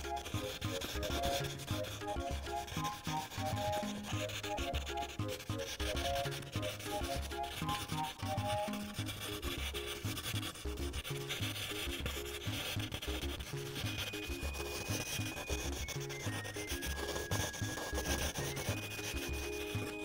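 Prismacolor colored pencil scratching on paper, shading in light gray with continuous back-and-forth strokes, under soft background music with a steady beat.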